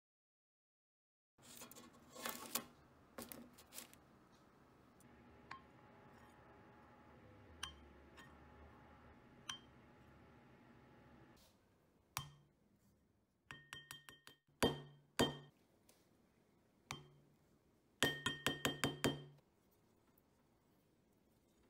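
A wooden spoon clinking and scraping against a glass container as almond powder and peanut butter are stirred together, in sharp taps that ring briefly. The taps come in several quick runs in the second half, the densest run near the end.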